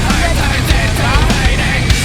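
Loud, aggressive heavy-metal-style music with a driving beat and distorted guitar.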